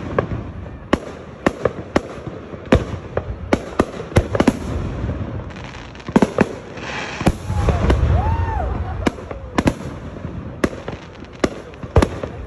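Aerial fireworks display: a rapid, irregular series of sharp bangs from shells bursting overhead, about one to two a second, with a louder stretch of rumbling bursts about two-thirds of the way through.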